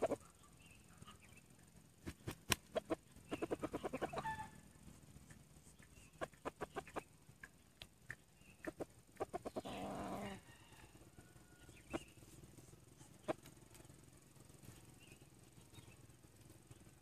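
Quiet clucks and scattered sharp ticks from red junglefowl roosters. A quick run of clucks comes about three seconds in, and a short noisy burst about ten seconds in.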